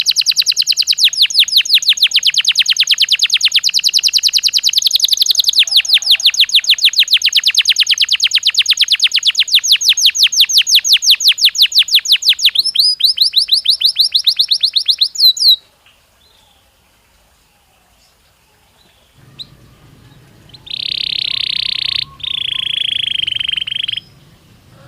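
Belgian canary singing: a long, fast trill of evenly repeated high notes that shifts to a higher-pitched roll near the middle and stops abruptly. After a brief pause, it sings two long held whistles, the second dipping slightly in pitch at the end.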